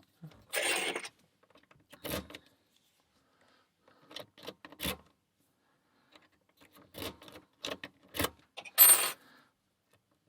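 Metal clicks and clinks of lock picks and a tension tool being handled at a Paclock padlock. They come in scattered short rattles, and the loudest clink near the end rings briefly.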